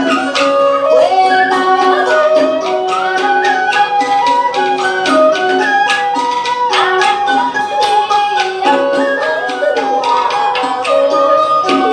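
Traditional Vietnamese music of the water puppet theatre: a melody instrument moves between held notes over quick, steady percussion strokes.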